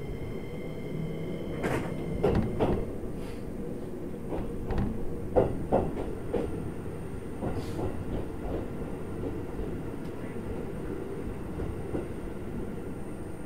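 Keikyu New 1000 series electric train running, heard from on board: a steady low rumble of wheels on rail. From about two seconds in to about eight seconds, a run of irregular sharp clacks comes as the wheels pass over rail joints, the loudest about halfway through.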